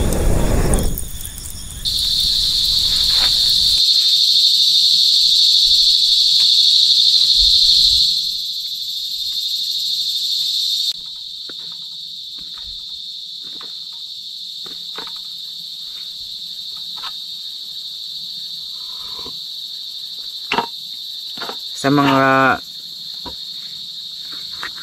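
A steady high-pitched insect chorus that comes in loudly about two seconds in, drops down in two steps, and then carries on more quietly. Short clicks are scattered through it, and a brief loud pitched sound comes near the end.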